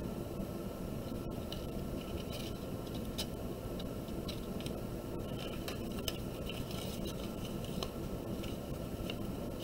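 Light scraping and rustling of construction-paper strips being handled and pressed down onto paper, with a glue stick in use, as scattered small scrapes and clicks over steady low background noise.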